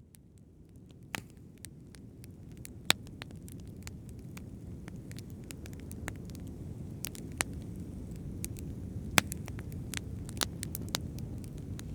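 Fire crackling, with irregular sharp pops over a low steady rumble that fades in over the first few seconds; the loudest pops come about three seconds in and again about nine seconds in.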